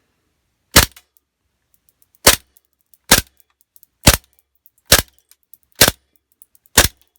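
WE Luger gas blowback airsoft pistol with an 8-inch barrel firing seven shots, about one a second. Each shot is a sharp pop with the toggle bolt cycling, and the pistol is working properly.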